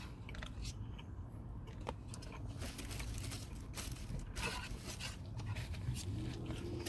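Eating and handling takeout food: irregular small crunches, rustles and clicks over a steady low hum.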